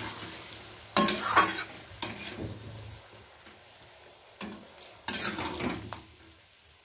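Long metal spatula stirring and scraping potato curry around a metal kadai, several scrapes and knocks against the pan over a faint sizzle of the curry cooking after water was added.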